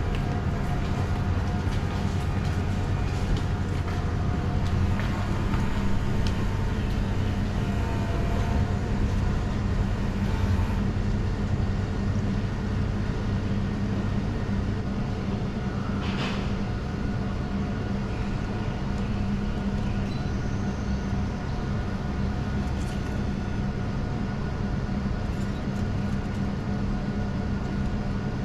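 Steady low mechanical hum, with a deeper band that drops away about five seconds in.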